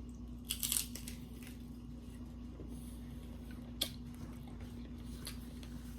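Quiet chewing with a few short crunches of a crispy hard-shell rolled chicken taco, over a faint steady hum.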